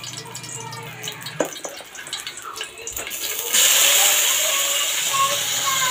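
Sliced garlic frying lightly in oil in an aluminium wok, then a sudden loud, steady sizzle about three and a half seconds in as the corned beef hits the hot oil.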